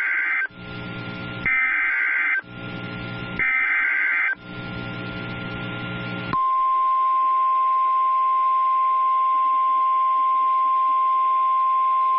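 Emergency Alert System SAME data header: harsh two-tone digital warbling bursts, each about a second long. The end of one burst is followed by two more, with a low buzz in the gaps. About six seconds in, the NOAA Weather Radio 1050 Hz warning alarm tone starts, a single steady loud tone that signals a warning broadcast is about to follow.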